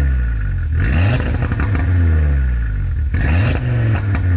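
Audi RS3's turbocharged five-cylinder engine blipped twice, about a second in and about three seconds in; each time the revs climb quickly and then fall back slowly over about two seconds, heard through its exhaust.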